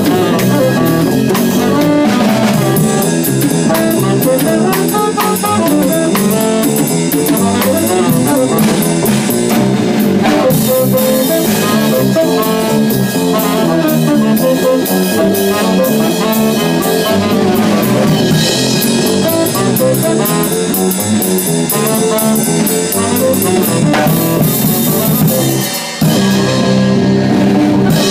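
Jazz trio playing: saxophone lead over upright double bass and drum kit with cymbals. The sound dips briefly near the end, then the full band comes back in.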